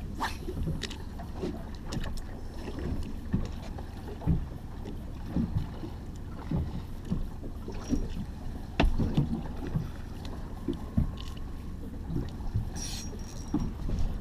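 Small boat drifting at sea: water slaps and knocks irregularly against the hull over a steady low rumble of wind on the microphone, with a few sharp clicks.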